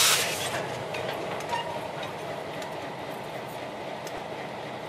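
Slow freight train, a pair of EMD MP15 switcher locomotives with an empty centerbeam flatcar, rolling past. A loud clatter right at the start, then a steady rumble of wheels on rail that slowly fades, with scattered light clicks.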